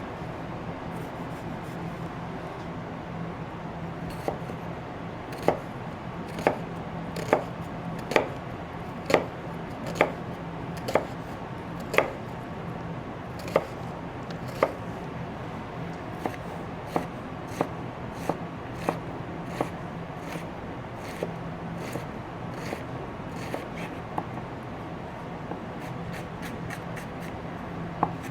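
Chef's knife dicing an onion on a cutting board: sharp knocks of the blade striking the board, about one a second at first, then lighter and quicker strokes in the second half. A steady low hum runs underneath.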